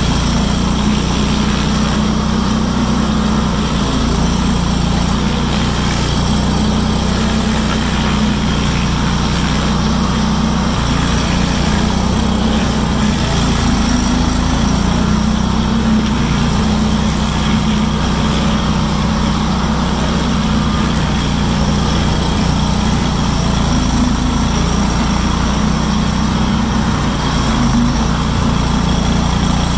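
Bandit SG-40 stump grinder's engine running steadily under load as its spinning cutter wheel grinds a stump into chips.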